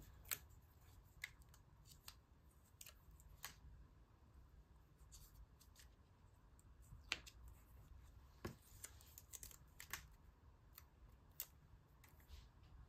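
Faint, irregular ticks and brief rustles of paper magazine cutouts being handled for a collage.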